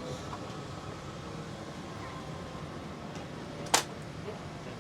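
Steady air-conditioning hum inside a parked Boeing 787's cabin, with one sharp click about three and a half seconds in.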